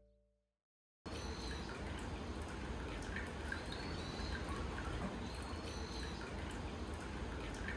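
Hot spring water pouring steadily into an onsen bath, starting abruptly about a second in, with a few faint high chirps over it.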